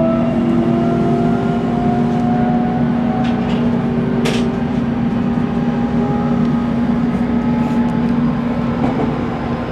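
Running sound of a JR Kyushu 813 series electric train, heard from inside the front car: the whine of its Toshiba GTO-VVVF inverter and traction motors, with tones slowly rising as the train gathers speed, over steady wheel and rail rumble. A single sharp click about four seconds in.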